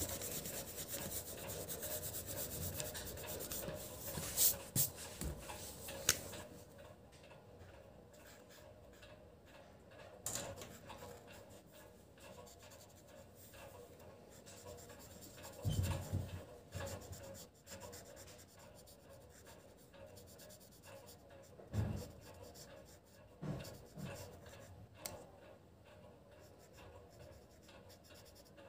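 Marker pen scratching and rubbing on paper as a drawing is coloured in, louder for the first few seconds and fainter after, with a few soft knocks in the second half.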